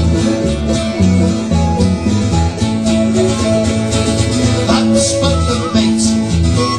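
Folk band playing a sea shanty, led by strummed acoustic guitar with steady chord changes.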